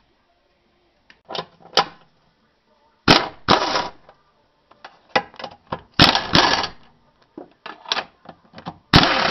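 A power wrench spinning on the upper engine mount bolts in four short rattling bursts, each under a second, with small clicks and knocks of the socket between.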